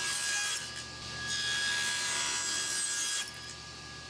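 Table saw cutting thin strips of solid hardwood with its motor and blade whining steadily throughout. Two cuts are heard: one ending about half a second in, and another from about a second in to about three seconds, after which the blade spins freely and more quietly.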